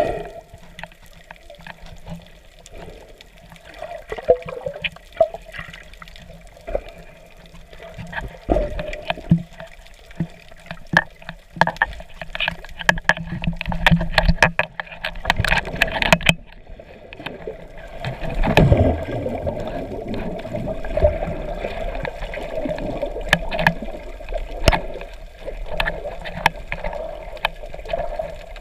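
Muffled water sound picked up by a submerged camera: water rushing and bubbling around it, with a low steady hum, many scattered clicks and knocks, and louder surges a few seconds long.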